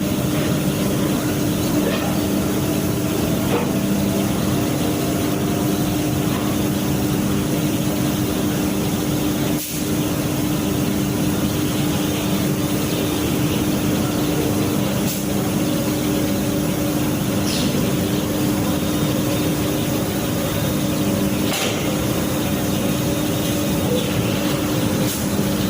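A washing machine running steadily, a constant motor hum under an even hiss, with a brief dip in level about ten seconds in.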